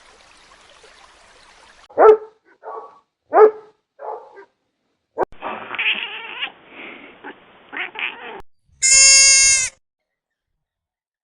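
A cat meowing: four short meows in quick succession, then a stretch of rougher animal noise, and one loud, steady, high-pitched animal call near the end.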